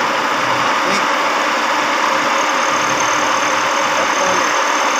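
Carbureted car engine running steadily during a test run after a carburettor overhaul, with a thin high whistle joining about halfway through.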